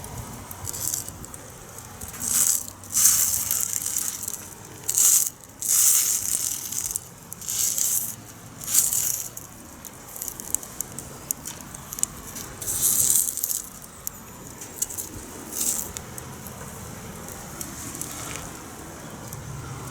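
Large grilled rice ball sizzling on a wood-burning fire pit, with about eight short, separate bursts of hissing.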